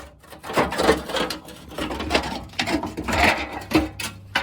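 Irregular rattling and scraping with several sharp knocks, loudest around a second in and again near four seconds.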